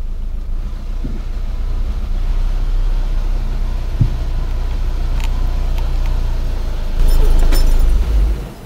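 Volkswagen Jetta TDI's four-cylinder turbodiesel idling steadily, heard from inside the cabin as the car creeps forward. The engine grows louder for about a second near the end, then is switched off about eight and a half seconds in.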